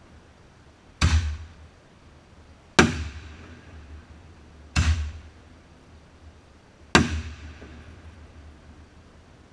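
Aerial firework shells going off: four loud booms about two seconds apart, each trailing off in a rumbling echo.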